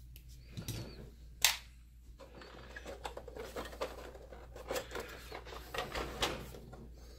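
Hands handling the plastic housing of a Mitsubishi EX240 projector. There is a sharp click about a second and a half in, then a steady run of light clicks, rubbing and tapping on the plastic case as it is gripped and turned.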